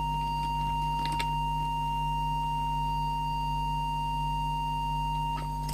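A steady pure test tone of about 1 kHz over a low mains hum, as used on the bench to set an FM CB transmitter's deviation.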